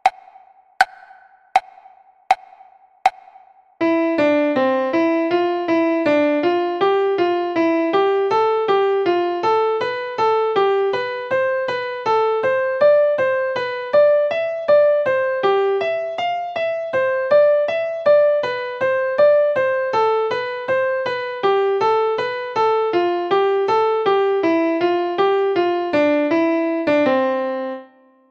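Metronome clicks the last beats of a count-in, about one click every three-quarters of a second. About four seconds in, an electric piano starts a stepwise eighth-note melody in C major at an even tempo, and near the end it settles on a held middle C.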